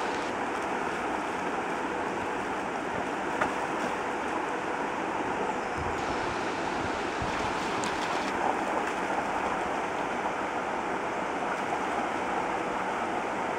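Shallow river running over stones: a steady rush of water, with a few brief splashes from a dog wading through it.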